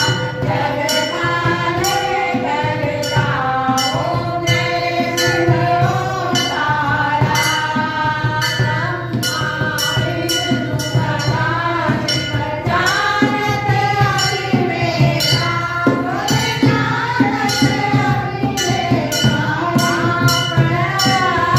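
Hindu devotional kirtan: group singing of a bhajan over a steady beat of hand drum and tambourine jingles, with one held drone note underneath.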